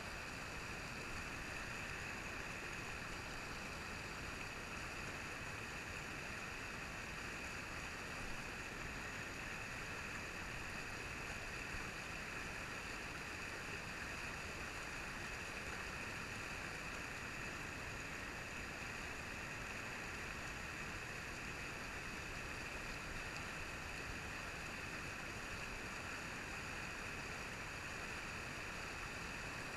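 Steady rush of a river riffle, water tumbling white over rock ledges.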